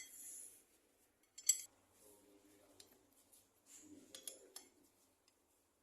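Hand tools and bolts clinking on metal while a tractor's flywheel is being unbolted: scattered sharp metallic clinks, the loudest about a second and a half in and a few more around four seconds in.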